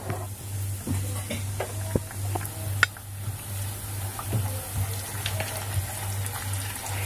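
A puri deep-frying in hot oil in a kadai: the oil bubbles and crackles while a slotted metal spoon scrapes and taps against the pan, with one sharper clink about three seconds in. A low hum pulses steadily underneath, about twice a second.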